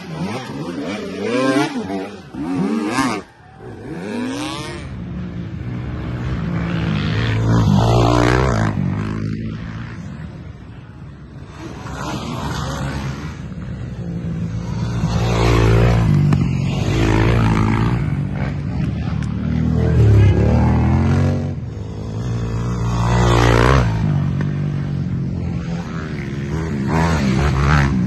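Racing ATV engines revving as quads ride past one after another, each pass swelling and then falling away in pitch. For the first three seconds, a dirt bike engine revs hard and unevenly as it climbs a steep hill.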